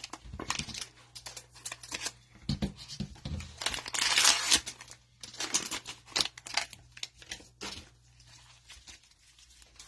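Cellophane-wrapped trading card pack being opened with scissors: the plastic wrapper crinkles and tears, with scattered small clicks and snips. The loudest rustle comes about four seconds in.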